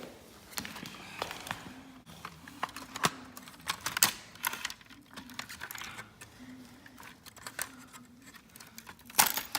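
Irregular clicks, snaps and rattles of plastic and metal parts as a smashed HP laptop is pulled apart by hand, with a sharp crack about four seconds in and a louder cluster of snaps near the end.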